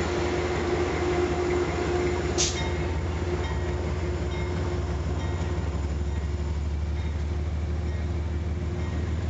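Amtrak passenger train's stainless-steel coaches rolling slowly past, a steady low rumble of wheels on rail with a steady hum over it. A single sharp click about two and a half seconds in.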